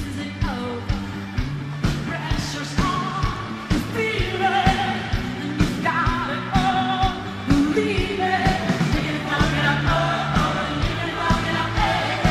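Live pop-rock band with a woman singing lead into a microphone over a steady drum beat and sustained bass.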